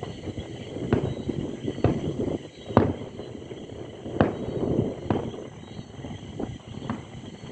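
Distant fireworks bursting: a string of irregular booms and cracks, each with an echoing tail, the loudest about three and four seconds in, over a steady low rumble of further fireworks.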